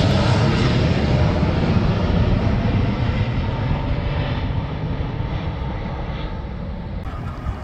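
Jet airliner passing low overhead, its engine noise loud at first and fading steadily as it moves away.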